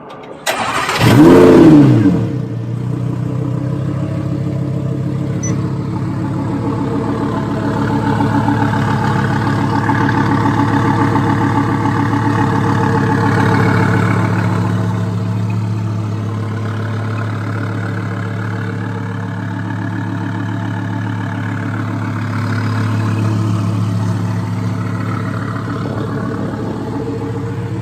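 Twin-turbocharged 2015 Lamborghini Huracán 5.2-litre V10 starting. It catches about half a second in with a loud flare of revs that rises and falls back within a second or two. It then settles into a steady idle.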